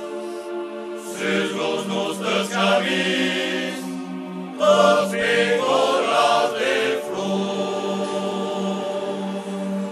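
Group of voices singing: a long held low note runs underneath, and two melodic sung phrases rise over it, the first starting about a second in and the second, louder one about halfway through.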